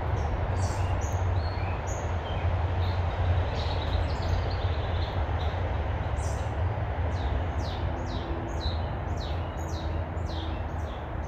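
Songbird chirping over a steady low background rumble; in the second half the bird gives a run of quick downward-sliding chirps, about two a second.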